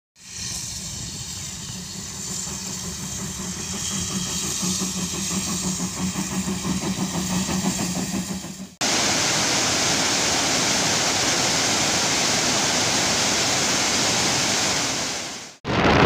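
Steam locomotive chuffing as it approaches, its beat growing louder over the first eight seconds or so. After an abrupt cut about nine seconds in, a steady, louder rushing noise takes over until a second cut near the end.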